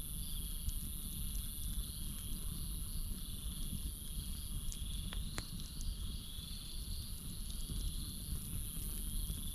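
Campfire burning with a low rumble and a few sharp crackling pops, under a steady night chorus of crickets and frogs: one even, very high insect trill and a lower, pulsing chirring call.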